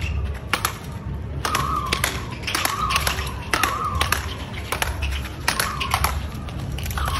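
Speedball rally: the tethered ball is struck back and forth by paddle rackets in sharp knocks, about two a second, with short squeaks in between.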